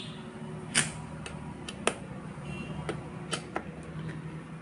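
Scattered light clicks and taps, about eight in all, from a screwdriver working the screws that close a ceiling fan's motor housing, over a low steady hum.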